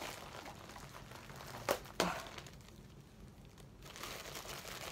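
Plastic parcel packaging being handled and worked open by hand, soft rustling with two sharp clicks close together about two seconds in.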